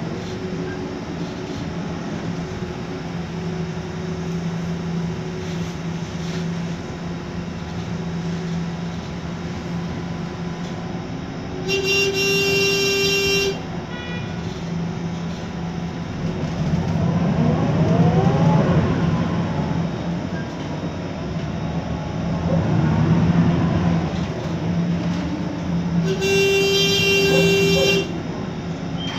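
Cabin sound of a MAN Lion's Classic city bus under way, its CNG engine and ZF Ecomat automatic gearbox giving a steady hum, with a whine that rises and falls twice in the second half as the bus pulls through the gears. Two horn blasts of about two seconds each sound, one near the middle and one near the end.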